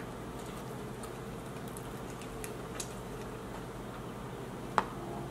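Quiet room tone with a few faint, scattered clicks, the clearest just under five seconds in.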